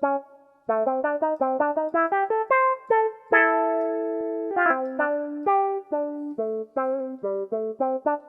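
A Casio AiX keyboard plays a guitar preset: quick plucked single notes climbing upward, a chord held for about a second, then a further string of single notes.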